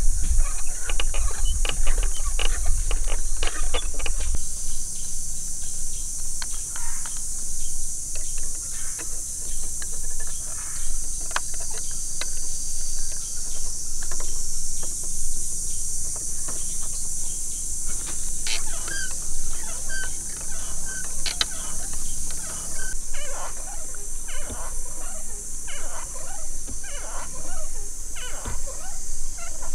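Bamboo being worked by hand: scattered clicks and knocks as pieces are handled and whittled with a knife, over a steady high drone of forest insects.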